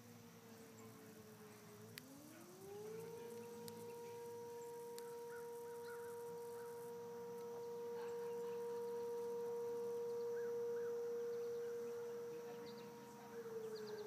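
Air-raid siren wailing: after a falling tail, it winds up over about a second to a steady held tone, which starts to wind down again near the end.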